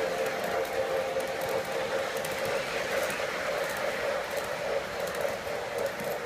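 O scale electric model train running on its track: a steady hum with faint light clicking.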